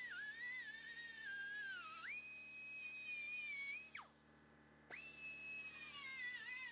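Cut-off wheel tool whining as it cuts the sheet-metal floor pan of an early Ford Bronco, its pitch sagging as the wheel bites into the metal and rising again when it runs free. About two thirds of the way through it is switched off and winds down quickly, then it starts up again and goes back to cutting.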